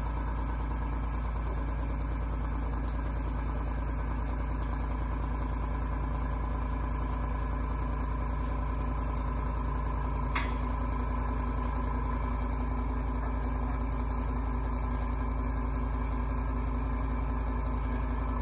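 Airbrush air compressor running steadily with a low hum, with one sharp click about ten seconds in.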